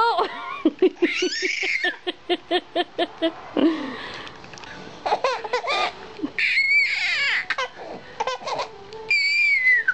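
Five-month-old baby laughing: a quick string of short, rhythmic laughs, then high-pitched squealing laughs, the last one falling in pitch near the end.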